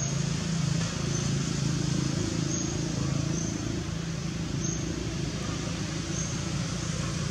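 A steady low mechanical hum over constant background hiss.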